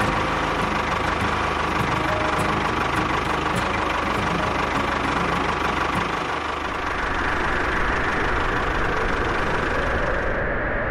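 Tractor engine running steadily with a low, even throb. About six seconds in the throb fades and a higher, smoother hum takes over.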